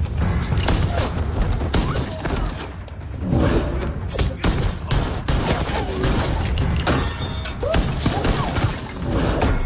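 Film fight-scene soundtrack: a rapid run of punch and hit impacts and heavy thuds over background music.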